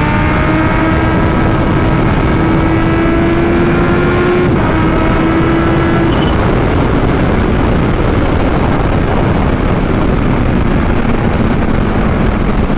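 Kawasaki Ninja H2's supercharged inline-four running at highway speed through a full titanium Vandemon exhaust, its pitch climbing slowly for about four and a half seconds, then breaking briefly and holding steady. After that the engine note sinks under a steady rush of wind and road noise.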